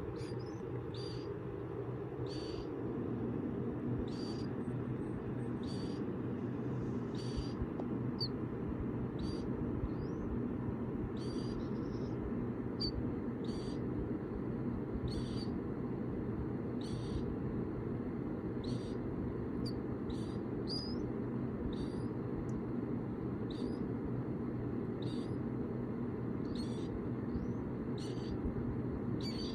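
Baby killdeer chicks peeping: short, high, thin peeps about once a second, some sliding upward, over a steady low hum.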